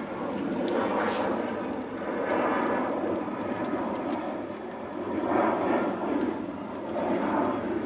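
Aircraft flying overhead: a loud, continuous rumbling roar that swells and eases every couple of seconds.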